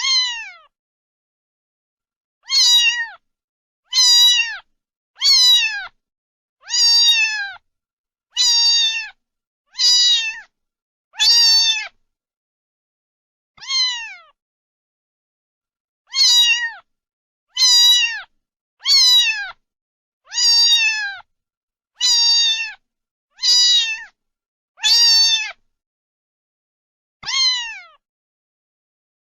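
Domestic cat meowing over and over: about seventeen short meows, each falling in pitch, roughly one every second and a half. There is dead silence between the meows and a longer pause in the middle.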